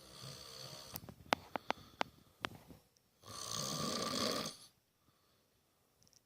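A man snoring: a rattling snore with a run of sharp crackling clicks, then a louder rasping breath about three seconds in.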